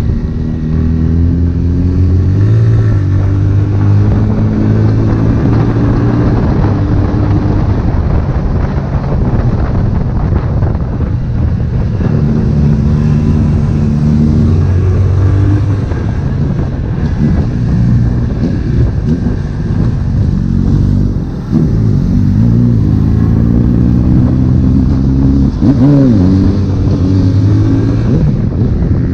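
Honda CB1000R's inline-four engine running while riding, its pitch holding steady for stretches and then rising and falling with throttle and gear changes. There is a brief drop in level about two-thirds of the way through, followed by a quick rev.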